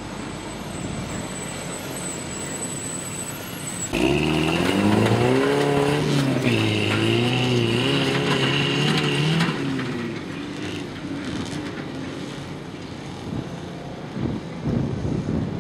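Off-road competition truck's engine revving hard, its pitch climbing and dropping as the throttle is worked. It comes in suddenly about four seconds in, with a steady high whine alongside, and eases off about five seconds later.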